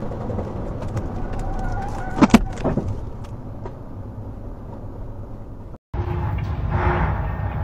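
Steady rumble of a moving car's tyres and engine heard from inside the cabin, with a brief loud knock about two seconds in. The sound cuts out for an instant just before six seconds and picks up again as a similar rumble.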